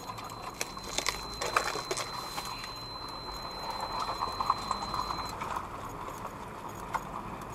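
Irregular knocks and rustling from someone moving inside a wrecked semi-truck cab, with clothing brushing close to the camera, over a steady hiss. A faint, high, steady tone stops about five seconds in.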